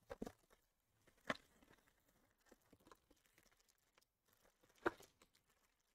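Quiet handling of trading cards and card packs: a few soft taps and rustles, the clearest about a second in and near the end, with faint ticks between.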